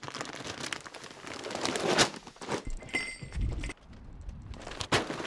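A large plastic dog-food bag rustling and crinkling as it is handled on a store shelf. Then a low rumble, and a single sharp knock about five seconds in.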